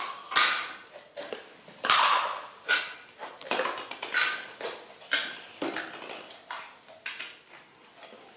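Baby monkey making a string of short squeaky calls, about one a second, with plastic toys knocking on the tile floor.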